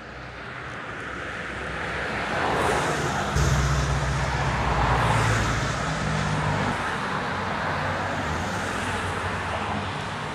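Road traffic passing close by: tyre and engine noise swells over the first few seconds, a heavier low engine drone joins about three seconds in, and the noise then holds loud and steady.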